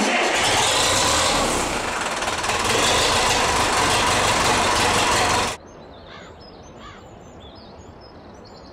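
Zetor 6211 tractor's diesel engine running loudly, cutting off abruptly about five and a half seconds in. Then a quiet outdoor background with birds chirping.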